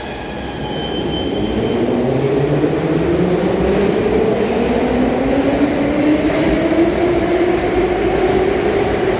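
Metro train accelerating, its traction motors giving a whine that rises steadily in pitch as it gathers speed, over the rumble of the wheels on the rails.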